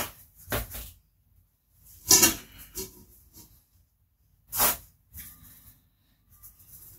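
A plastic scoop scraping citric acid out of a plastic tub and tipping it into a stainless steel pot of water. It makes a few short scrapes and rattles, the loudest about two seconds in and again about four and a half seconds in.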